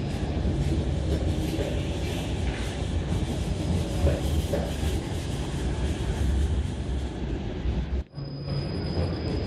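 A De Lijn tram running past the platform of an underground tram station, its wheels rumbling and clattering on the rails. About eight seconds in the sound drops out suddenly, then the rumble resumes.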